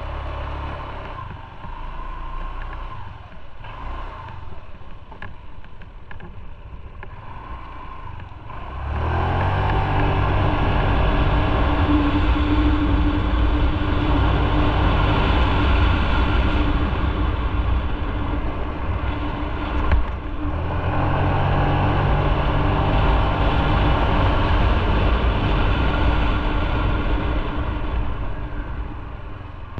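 Motorcycle engine idling, then pulling away about nine seconds in and accelerating, its pitch rising. About two-thirds of the way through it eases off briefly and accelerates again, as on a gear change, before dropping away near the end.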